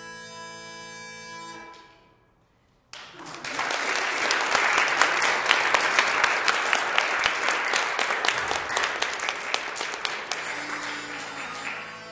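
Scottish smallpipes hold a final note over their drones, which dies away about a second and a half in: the end of the tune. After a moment of quiet, an audience claps for about nine seconds, tailing off near the end.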